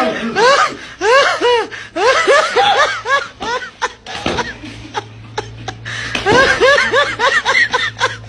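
Several men laughing hard in repeated quick bursts, with short sharp knocks between the laughs around the middle.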